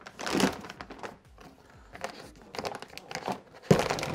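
Plastic moisture barrier sheet being pulled off the inside of a truck door, crinkling and crackling irregularly, with louder rustles about half a second in and again near the end.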